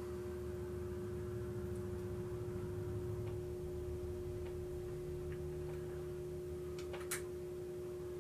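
A steady hum with a held tone runs throughout. Over it come a few faint clicks and one sharper click about seven seconds in, from small metal parts of a Singer treadle sewing machine's bobbin and slide-plate area being handled.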